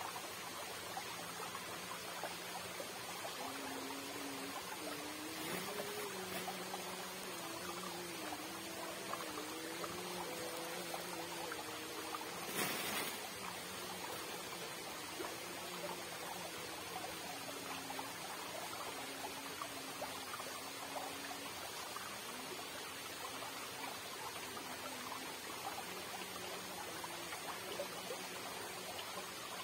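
Fast-flowing irrigation channel water rushing and trickling steadily, with a brief louder rustle a little before halfway.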